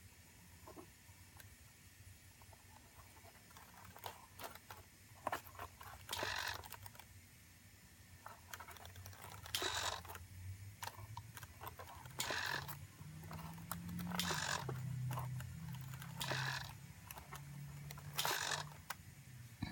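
Hobby servo on a model-railroad turnout whirring in short bursts about every two seconds as it throws the switch points back and forth, with sharp clicks from the push buttons and relays. A low hum runs under it from about halfway through.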